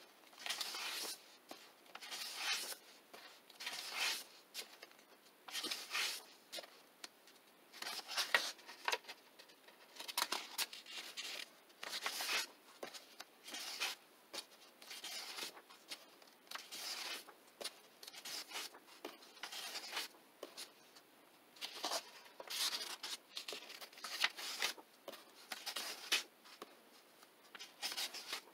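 Paper pages of a paperback coloring book being turned one after another, each turn a short papery rustle and flap, about one every second or two.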